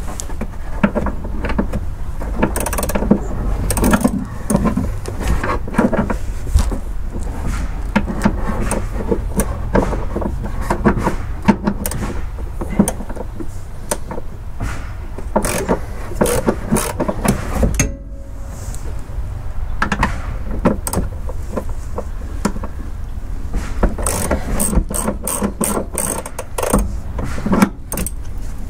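Hand socket ratchet clicking in short runs as it works the upper mounting bolts of a car's rear shock absorber, mixed with knocks of tools against metal. A faster run of clicks comes near the end.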